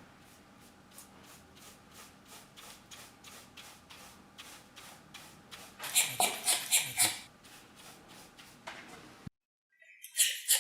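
A drilled anchor hole in solid concrete being cleaned with rapid repeated strokes, about three a second, louder for about a second just past the middle. The sound cuts off abruptly near the end, then the strokes start again loudly.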